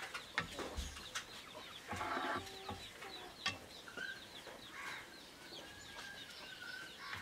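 Chickens clucking, with small birds chirping throughout. A spatula stirring noodles in a metal wok of boiling water knocks against the pan a few times.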